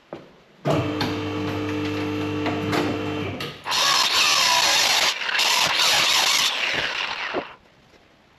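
A motor runs steadily at an even pitch for a few seconds, then gives way to a louder harsh rasping noise, typical of power-tool work on metal, that lasts about four seconds and stops shortly before the end.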